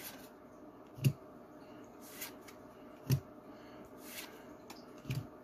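Pokémon trading cards being flipped through one at a time, each card slid off the front and tucked to the back of the stack. There is a short snap about every two seconds, with fainter card rustles between.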